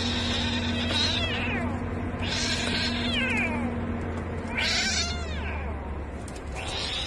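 Kitten squalling in distress while another kitten pins it down in a fight: four high-pitched cries, each falling in pitch, about two seconds apart.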